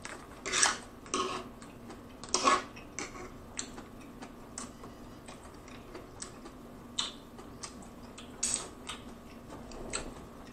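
Close-miked eating: a metal fork clicking and scraping in plastic takeout containers, with chewing of baked pasta and salad. An irregular scatter of sharp clicks, the loudest about half a second and two and a half seconds in.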